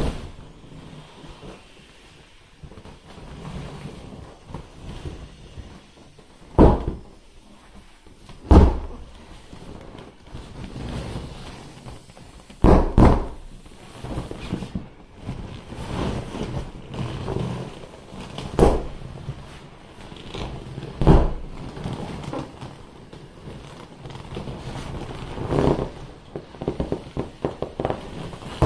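Vinyl of a large inflatable wolf pool toy being squeezed and rubbed, with irregular crinkling and squeaking between about half a dozen loud, sharp pops as the toy is punctured.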